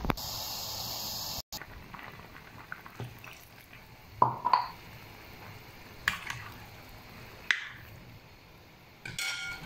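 Pot of dumplings at a rolling boil, a loud hissing bubble for about the first second and a half, then quieter bubbling broken by a few sharp clinks and knocks of a utensil against the pot.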